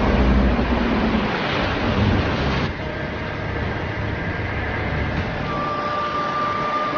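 Rushing wind and a deep rumble as a storm rises, an animation sound effect; the rumble cuts off sharply about three seconds in, and a thin steady high tone comes in past the midpoint.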